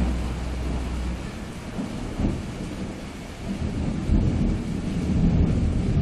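Thunder-like low rumbling over a steady rain-like hiss, as in a storm ambience laid under title cards. A low steady drone cuts off about a second in, and the rumble swells again near the end.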